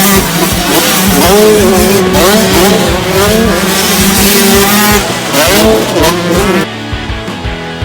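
Racing engines revving up and down, their pitch rising and falling repeatedly; the sound changes abruptly about a second before the end.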